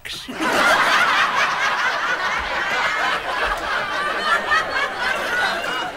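Audience laughing, the laughter breaking out all at once and staying strong.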